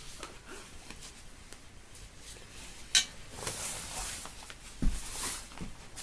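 Handling noises from bicycle tube repair work: a sharp click about three seconds in, the loudest sound, and a second click near five seconds, each followed by a brief rustle.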